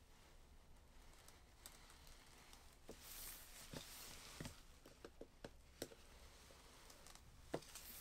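Gloved hands handling a smartphone box on a steel worktop: faint scattered taps and clicks, with a soft rustle of the plastic wrap being slit about three seconds in, and a sharper tap near the end.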